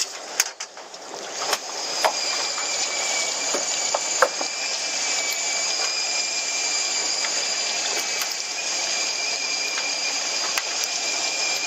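Water rushing along a fishing boat's hull, with a steady high whine setting in about two seconds in.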